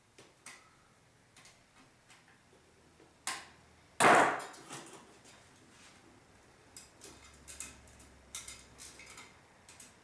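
Light metallic clicks and clinks of BX armoured cable and its metal connector being handled, with one much louder clank about four seconds in and a run of quicker clicks near the end.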